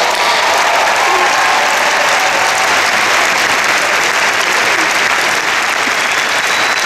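Sustained applause from a large crowd clapping in a big arena, loud and even throughout.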